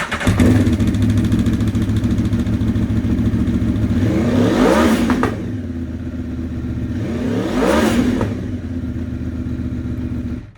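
2017 Aprilia Tuono V4 Factory's V4 engine with the Aprilia exhaust, just started and idling, revved twice: the pitch climbs and drops back about four and a half and about eight seconds in. The sound cuts off abruptly near the end.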